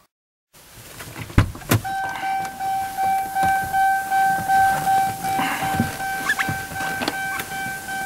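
A couple of clunks about a second and a half in, then a car's warning chime sounding as one steady unbroken tone while the driver's door stands open, over wind gusting against the microphone.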